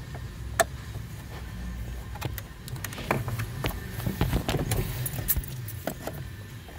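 Light metallic clicks and rattles, thickest in the middle seconds, as a screwdriver backs out the last screw on a 2004 Dodge Grand Caravan's instrument-cluster trim, with a jangle like keys. A low steady hum runs underneath.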